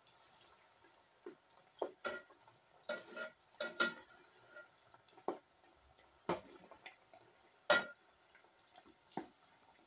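Metal slotted spoon clinking and scraping against an aluminium pot of deep-frying meatballs: about ten irregular knocks, several with a short metallic ring, over a faint crackle of the hot oil.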